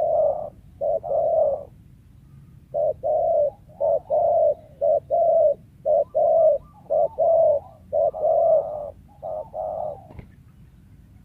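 Spotted dove cooing: a run of short, low, repeated coos in quick phrases, with a brief pause about two seconds in, stopping about ten seconds in.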